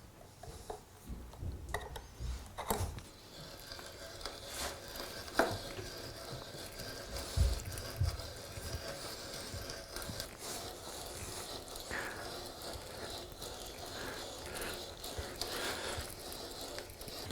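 Scattered light knocks and taps of wood and hand tools being handled on a workbench, several sharper ones in the first half.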